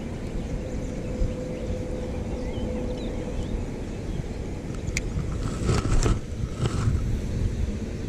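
Wind rushing over the microphone while a Tica Flash Cast 2500 spinning reel is cranked to retrieve a lure. A faint steady hum fades out after about three seconds, and a few short clicks and rattles come about five to seven seconds in.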